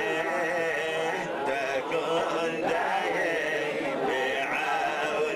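Men chanting Jewish prayers in the Adeni tradition, one voice leading into a microphone with others singing along.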